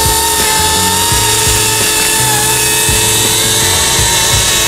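Small electric radio-controlled helicopter (RC ERA C187) in flight, its motor and rotors giving a steady high whine that wavers slightly in pitch. Background music plays underneath.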